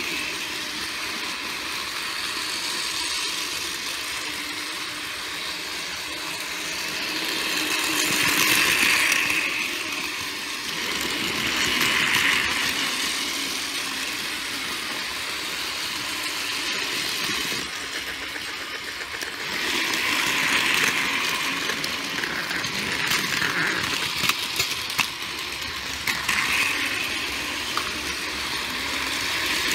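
Battery-powered toy trains running on plastic track: a steady small-motor whir with wheel clatter, growing louder several times as a train passes close, with a few sharp clicks about three-quarters of the way through.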